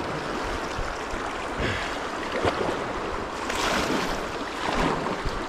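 River water rushing and splashing steadily, with a few louder surges of splashing.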